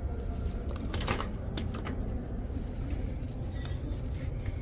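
Light clicks and rustles of Christmas figurines and ornaments being handled on a store shelf, over a steady low background hum. A brief high jingle comes near the end.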